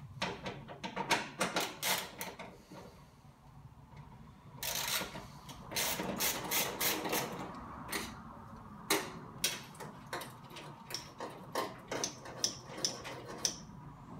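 Socket ratchet clicking in short runs, with scattered metal clinks, as a 13 mm nut on a bearing is worked loose.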